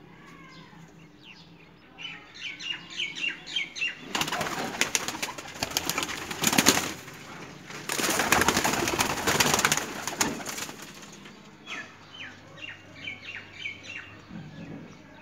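High-flyer pigeons flapping their wings in two loud bouts of a few seconds each, with rows of quick, short, high chirps before and after.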